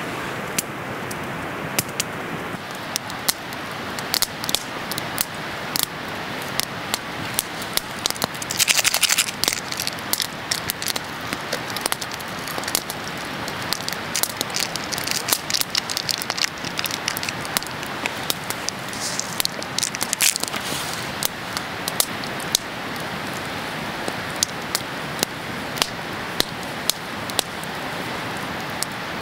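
Wood campfire burning, with frequent sharp crackles and pops over a steady hiss, and two brief louder hissing rushes about nine and twenty seconds in.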